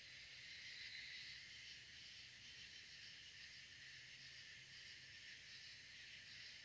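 Faint, steady chirring of crickets and other night insects, with no other sound standing out.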